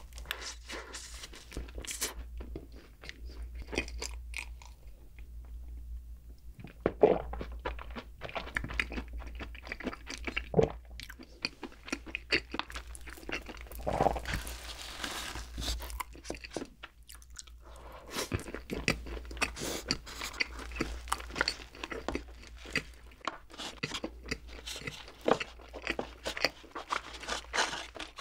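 Close-miked chewing of soft bread, with many small wet mouth clicks and crunches. About halfway through, a soft cream-filled bread roll is pulled apart by hand.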